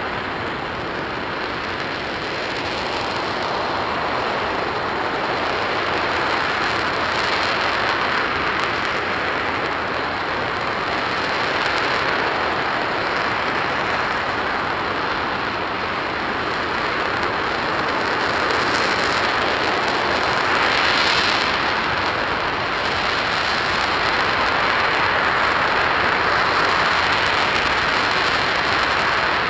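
RS-25 liquid hydrogen/oxygen rocket engine firing steadily on a test stand: a dense, even rushing roar with no breaks, swelling slightly about two-thirds of the way in.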